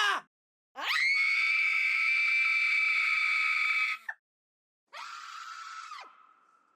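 Horror-style screams. A long, loud, high-pitched scream shoots up in pitch, holds for about three seconds and breaks off. A shorter, quieter scream follows about a second later and falls away with a faint lingering tail.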